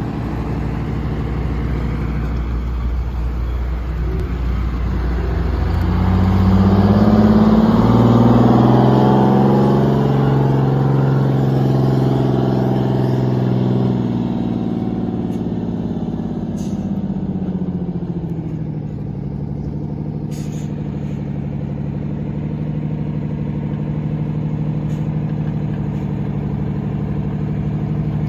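Supercharged and turbocharged two-stroke Detroit Diesel engine of a 1980 Silver Eagle bus pulling a boat trailer. It grows louder as the bus passes close about a quarter of the way in, its pitch bending, then fades back to a steady, lower running note as the bus moves slowly on the ramp.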